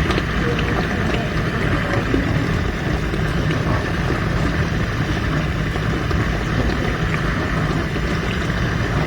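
Bosch dishwasher running with its newly fitted circulation/heat pump: a steady pump hum with water rushing and spraying inside the tub, the sign the new pump is circulating water.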